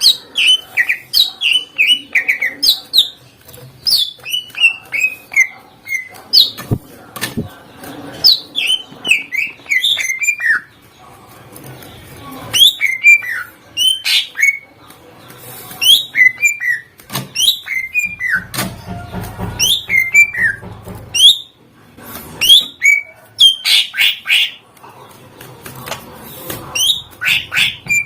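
Cucak ijo (green leafbird) singing in quick runs of sharp, downward-sliding whistled notes, broken by short pauses.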